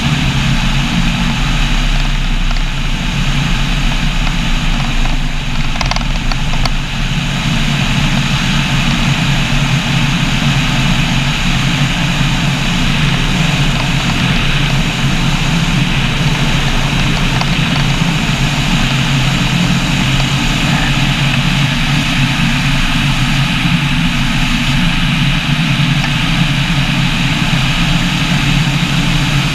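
Microlight trike's rear-mounted engine and pusher propeller running steadily in flight, with wind rushing over the microphone.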